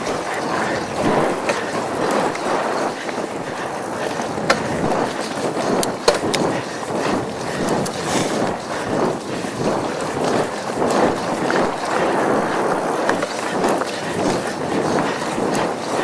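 Mongoose Tyax mountain bike rolling along a dirt forest trail, picked up by an SJCAM action camera: a steady, uneven rumble of tyres on dirt with rattles as the bike goes over bumps. Two sharp knocks stand out, about four and a half and six seconds in.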